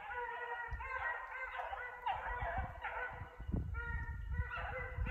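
Hunting hounds baying in a series of drawn-out calls, more than one voice overlapping, as the pack runs a hare's track. Close thumps and rustling come through a few seconds in.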